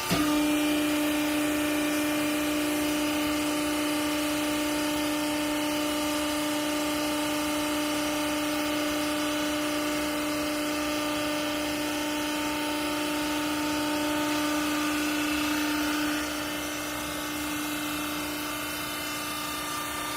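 Clothes rag baler's hydraulic machinery running with a steady hum. A strong tone sets in suddenly at the start and drops away near the end, leaving a quieter hum.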